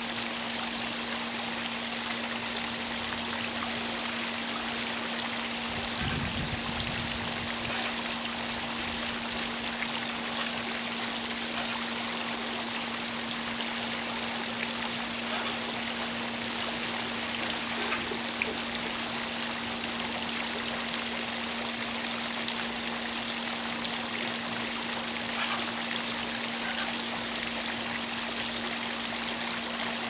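Water splashing and trickling steadily as it spills over the scalloped rims of a tiered stone garden fountain into the bowls and basin below. A steady low hum sits underneath.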